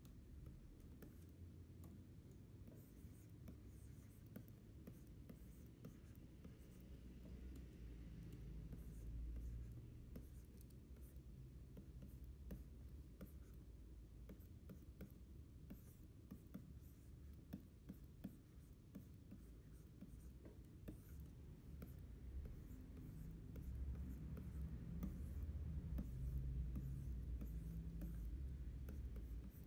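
Stylus nib scratching and ticking faintly across a pen-display screen as block letters are inked stroke by stroke, over a low rumble that grows louder near the end.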